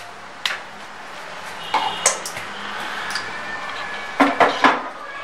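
A few separate clinks and knocks of a blender jar being handled and fitted on a juicer-blender base: one about half a second in, a couple around two seconds, and a quick cluster near the end.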